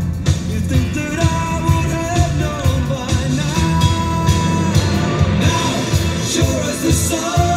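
Background rock music with a sung vocal and a steady beat.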